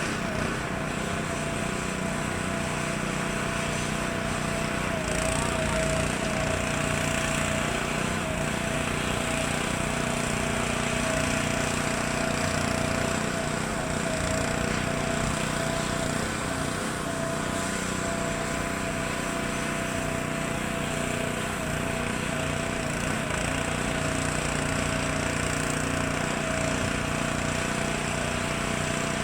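Federal Signal 3T22 three-tone storm siren sounding its steady alert, holding a constant pitch with a rough, noisy undertone.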